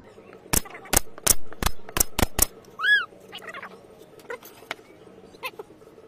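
Pneumatic brad nailer firing brads into a wooden board, about seven sharp shots in quick succession over two seconds. A single short chirp follows, then light knocks of wooden pieces being moved about.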